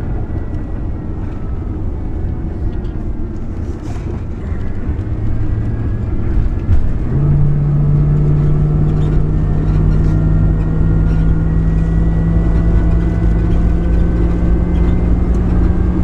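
Engine and road noise of an RV heard from inside its cab as it accelerates up the ramp onto the interstate. About seven seconds in it gets louder with a strong steady drone, and its higher tones rise slowly in pitch.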